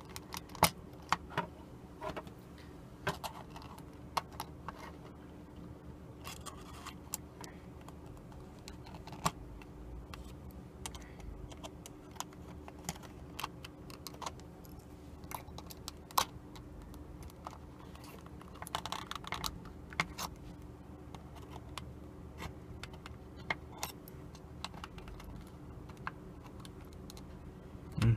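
Irregular small clicks and taps of plastic and metal parts and tools being handled while an alarm clock's gear train is taken apart, over a faint steady hum.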